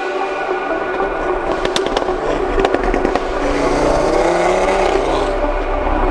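Audi RS3's five-cylinder engine pulling as the car drives, deepening toward the end, mixed with steady background music. A quick run of sharp clicks comes about two seconds in.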